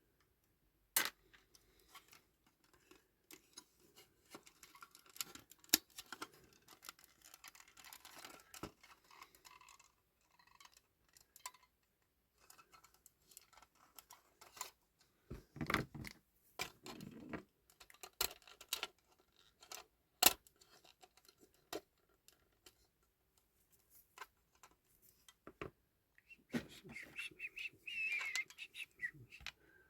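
Scattered small clicks, taps and light rattles from the parts of a 1/18 scale diecast model car and small tools being handled during disassembly.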